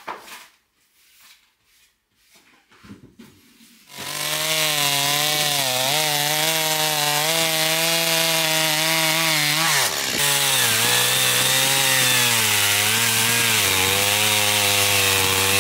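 Two-stroke Stihl chainsaw cutting a log lengthwise, throwing coarse chips. It comes in loud and steady about four seconds in after faint sounds. Its note dips briefly about ten seconds in, then runs on at a lower pitch.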